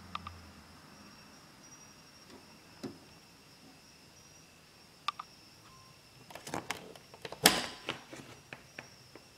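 Canon PIXUS iX6830 inkjet printer being switched off: its low hum dies away under a second in. Then come scattered clicks and knocks, with a cluster and the loudest knock near the end.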